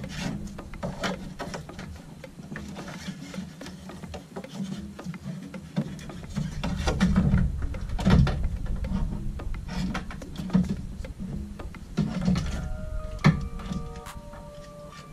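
Irregular rubbing and scraping with light knocks as a Subaru WRX's fuel pump assembly is worked up and out through the fuel tank's access opening. Music comes in near the end.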